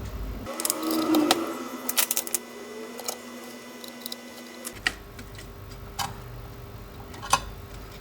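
Irregular sharp clicks and taps, several close together in the first half and a few single ones later, over a faint steady hum.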